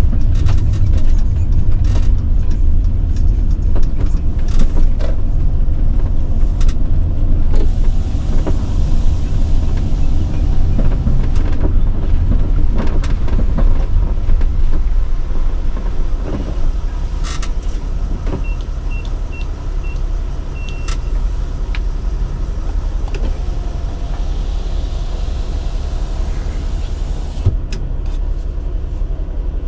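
Sprinter van driving, heard from inside the cabin: a steady low rumble of engine and road noise. About two-thirds in, a quick run of high beeps, four short and one longer.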